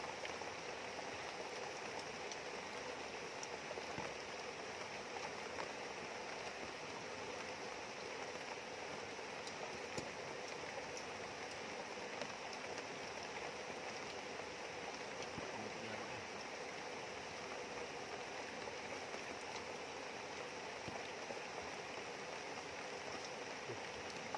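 Steady rain falling beside a rushing river: an even hiss of water, with now and then a faint tick.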